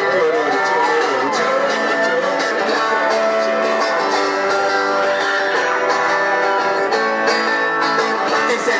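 Electric guitar strummed as the steady accompaniment of a live rock song, amplified through a PA speaker.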